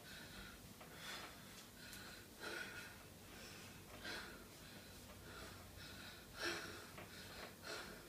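A person breathing hard through the mouth while exercising, short puffing breaths about once a second, the heavy breathing of exhaustion from exertion.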